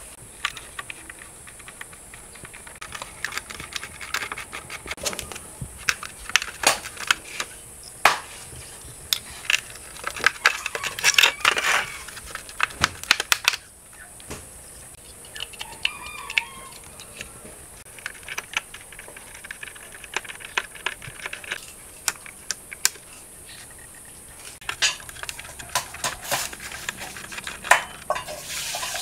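Irregular metallic clicks, taps and knocks of a screwdriver and small steel parts on a rusted M16 lower receiver being dismantled on concrete, with loose parts clattering as they are lifted off and set down.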